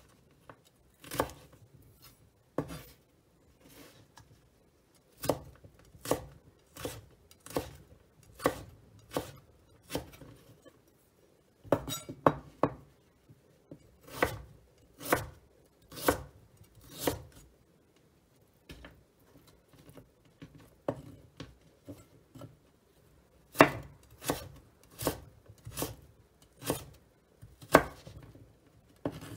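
Chef's knife slicing a carrot into thin strips on a wooden cutting board: an uneven run of sharp chops, about one to two a second, with brief pauses between batches of cuts.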